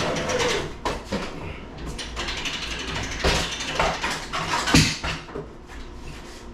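Hand-cranked boat trailer winch being wound, its ratchet pawl clicking irregularly as the strap draws the boat up onto the trailer.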